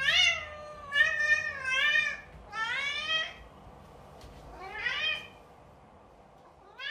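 A cat meowing over and over, drawn-out meows that rise and fall in pitch, about one a second, growing fainter toward the end.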